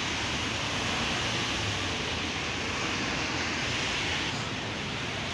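Steady hiss of city traffic, tyres running on a wet road. The hiss eases slightly about four seconds in.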